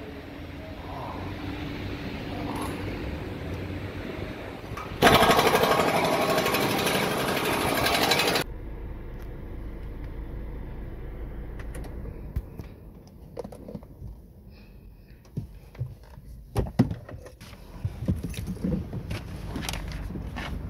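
A loud, fast mechanical rattle lasting about three and a half seconds that starts and stops abruptly, like a power tool run in a burst, over a steady background hum; afterwards scattered clicks and knocks.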